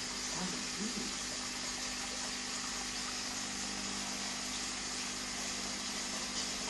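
Steady fizzing hiss of air bubbles streaming up through an aquarium tank from an air stone, over a steady low hum.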